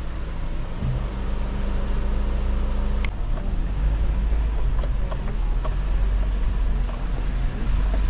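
Suzuki Jimny driving on a rough off-road trail: the engine runs steadily under a deep rumble, with scattered small knocks and rattles and one sharp click about three seconds in.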